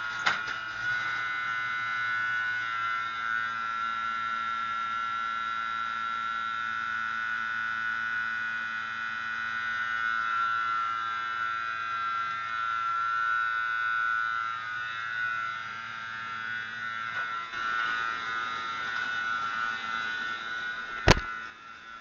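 A steady, unchanging electric buzz that holds for about twenty seconds, then a single sharp click near the end, after which it is quieter.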